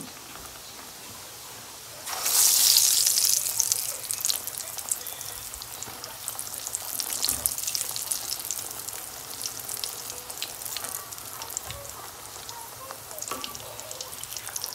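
A thin rolled roti of maida dough deep-frying in hot oil in a karahi. Steady sizzling jumps to a loud hiss about two seconds in, then settles into a crackle of many small pops.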